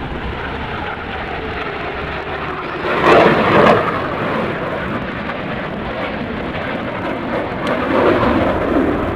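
Aircraft engine noise from an airshow pass: a steady rumble that swells louder about three seconds in and again near the end.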